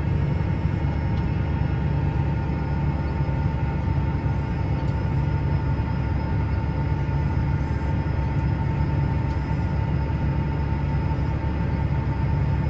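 Combine harvester running steadily while harvesting corn, heard from inside the cab: a constant low drone with a steady high whine over it.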